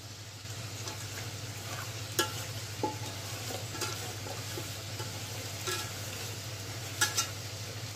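Hand kneading and squishing wet marinated chicken pieces in an aluminium bowl, with a few sharp clicks against the bowl's side. Under it runs the steady sizzle of potatoes frying in oil.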